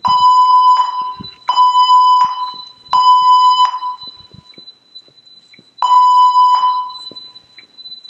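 Building evacuation alarm sounding the temporal-three pattern: three beeps of about three-quarters of a second each, a pause of about two seconds, then the first beep of the next round. Each beep echoes in a large hall. This is the evacuation tone that alternates with the system's spoken announcement.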